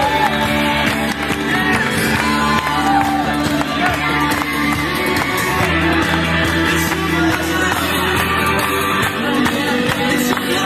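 Music playing continuously, with a crowd's voices mixed in.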